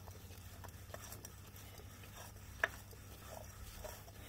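Faint rubbing and small clicks as a gloved hand spins a new spin-on oil filter down its threads onto the engine mount, with one sharper click about two and a half seconds in. A low steady hum runs underneath.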